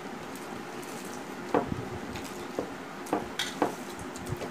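Eating with the hands from steel plates: fingers mixing and squishing rice against the metal, with chewing and about five sharp clicks and smacks, about a second and a half in and again in the second half.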